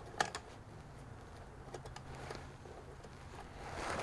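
A few faint, scattered clicks and knocks from a hand-operated bucket pump on a pail of gear oil as it is handled and worked to fill a truck axle, over a faint steady low hum. The clicks and knocks grow louder near the end.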